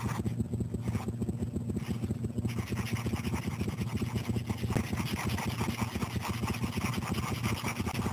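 Felt-tip marker scribbling on sketchpad paper: rapid back-and-forth scratchy rubbing strokes, which get hissier about two and a half seconds in.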